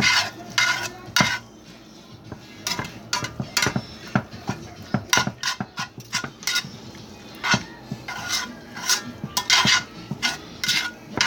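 A metal utensil scraping and clinking against a cooking pot as chicken is stirred, in a run of irregular strokes.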